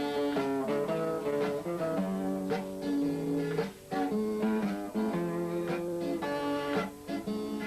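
Instrumental break of a bard song: guitar playing a melody over strummed chords, with no singing.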